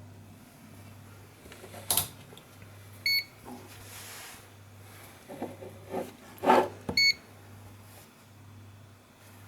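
A digital multimeter gives two short electronic beeps, about four seconds apart, while the intake air temperature sensor's resistance is measured. A few sharp clicks and knocks of handling the meter and probes come in between, over a faint steady hum.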